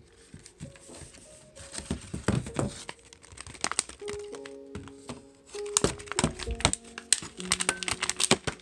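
Cat food packaging being handled and opened by hand: a run of short rustles and crackles of card and wrapping, loudest about two seconds in and again about six seconds in, over light background music.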